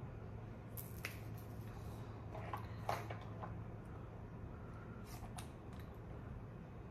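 Makeup items being handled: a few faint clicks and scrapes of small plastic containers and brushes, in three short clusters with the sharpest click about three seconds in, over a low steady hum.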